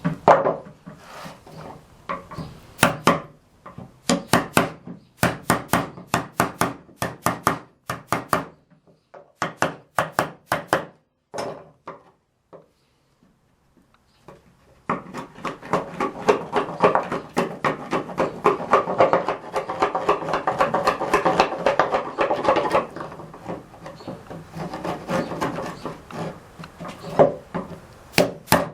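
Hammer tapping a wood chisel in quick runs of sharp strikes, knocking out the leftover nubs between saw kerfs in a dado. The runs stop briefly about halfway through, then give way to several seconds of dense, rapid scraping of the chisel along the wood.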